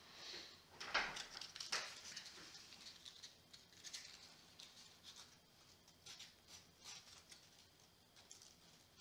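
Folded sandpaper rubbed by hand over a small butternut wood carving: soft, irregular scratchy strokes, with two louder rasps about one and two seconds in.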